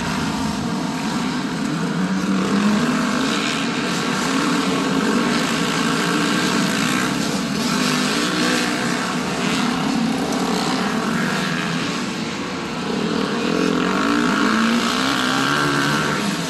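Motocross dirt bikes, among them a 2021 Yamaha YZ125 two-stroke, riding the track, their engines revving up and down over and over as the riders work the throttle and shift through the turns. The engine noise dips briefly about twelve seconds in.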